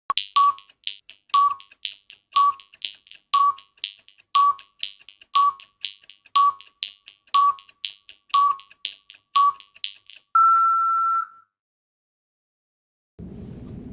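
Electronic countdown: a sharp tick about twice a second with a short beep on each second, ten beeps in all, then one longer, slightly higher beep lasting about a second. A low rumbling hum starts near the end.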